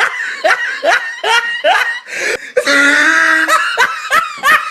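People laughing in quick, high-pitched bursts, with a couple of longer drawn-out voiced notes in the middle.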